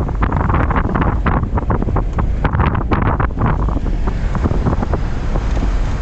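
Wind buffeting a camera microphone in a moving car: a loud, steady rush with many short crackles.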